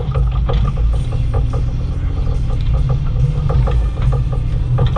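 Bobcat E35i compact excavator's diesel engine running steadily while it digs, with repeated short metallic clanks and rattles from the working machine.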